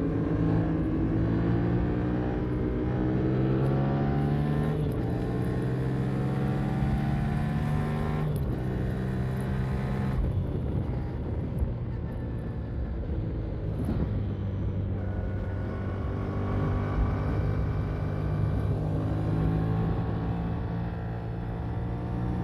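Yamaha MT-07 motorcycle's parallel-twin engine under way: the pitch rises in the opening seconds and steps down at breaks near five and eight seconds, as at gear changes. The throttle eases off around ten seconds in, and the engine runs at a steady pitch again from about fifteen seconds.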